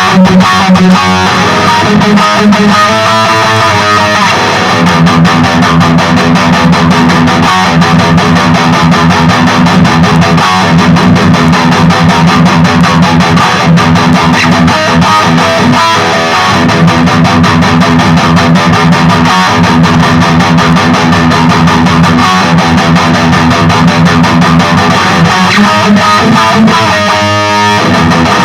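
Distorted electric guitar from an ESP LTD Deluxe with active pickups, played through a Peavey Vypyr 15 modelling amp on its XXX high-gain amp model. Fast, steady picked riffing with no break.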